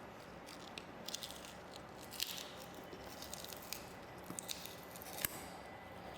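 Plastic being handled: irregular crisp crackles and clicks, ending in one sharp snap near the end, over a faint steady hum with a thin high tone.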